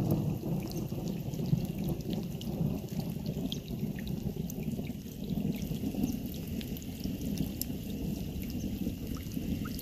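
Steady rain falling, with many scattered drops ticking close by and a low rolling rumble of thunder underneath.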